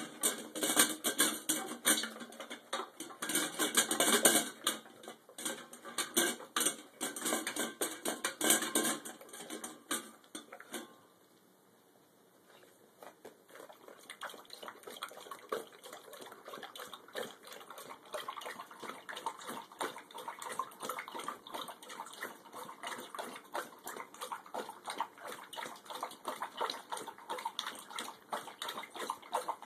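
A dog eating from a stainless steel bowl: dense crunching and clatter against the metal for about the first ten seconds. After a short quiet pause it laps water from a steel bowl, a quick, steady run of splashy licks.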